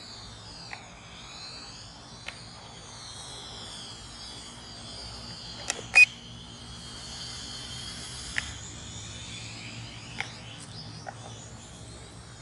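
Small budget quadcopter (Holy Stone HS110W) flying, its propellers making a high whine whose pitch wavers up and down as the motors work against the wind. Scattered sharp clicks, with one loud click about six seconds in.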